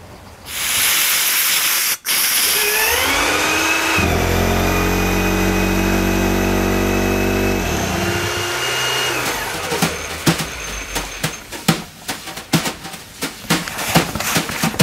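Two-stroke engine on a dyno being spun up: a rising whine that settles into a steady hum at about 1,800 rpm for a few seconds, then winds down. A hiss comes before it, and a run of sharp clicks or knocks fills the last few seconds.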